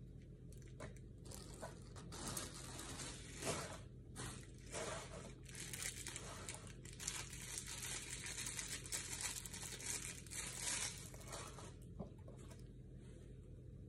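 Crinkling and crackling of a small clear plastic parts bag being handled, dying away near the end.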